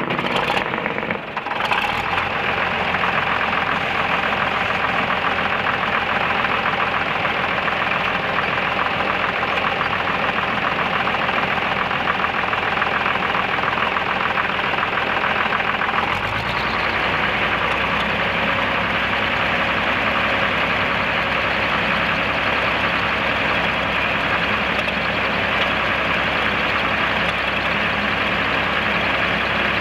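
The engine of a 1966 Case 930 tractor runs steadily throughout. About halfway through, its low note rises in pitch and gets fuller.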